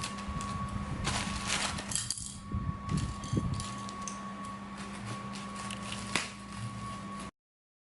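Hands handling and opening a cardboard box with a cordless drill: rustling with light knocks and clicks over a steady background hum, then the sound cuts off suddenly near the end.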